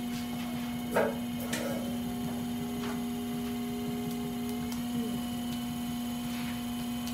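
Electric potter's wheel motor humming steadily while wet clay is thrown on it, with a brief knock about a second in.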